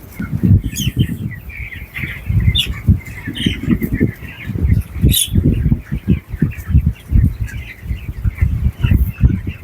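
A flock of broiler chickens in a poultry house, peeping and chirping continuously, with a few sharper high calls. Loud irregular bursts of low rumbling noise run underneath.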